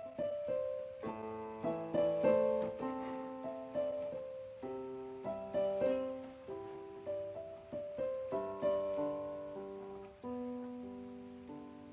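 Background piano music: a slow melody over chords, each note struck and then fading away.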